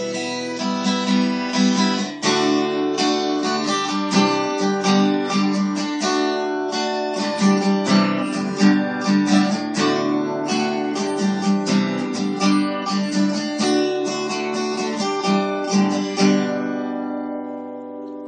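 Acoustic guitar strummed in a steady rhythm, with chords changing. Near the end the strumming stops and the last chord rings out and fades.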